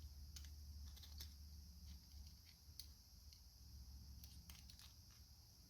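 Near silence with faint, scattered light clicks and taps of hand work on small metal parts, over a low steady hum.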